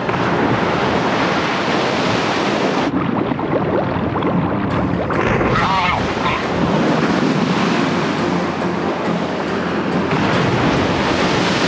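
Loud, continuous rush of splashing, churning seawater as a great white shark thrashes at the surface while attacking sea lions.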